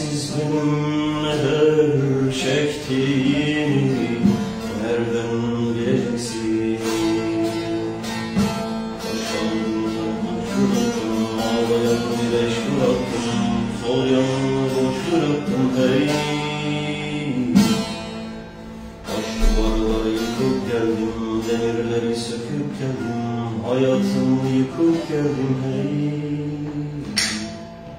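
A bağlama (long-necked Turkish saz) played with quick strummed and plucked notes, with a man singing a Turkish folk song (türkü) over it.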